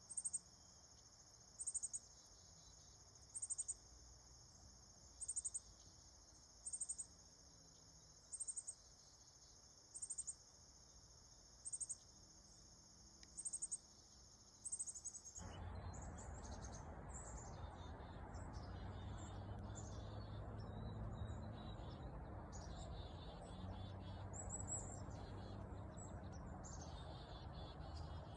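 Steady high trilling of crickets, with a short, sharp high call repeating about every one and a half to two seconds. About halfway through, this switches abruptly to a louder outdoor recording of scattered bird chirps over a low hum.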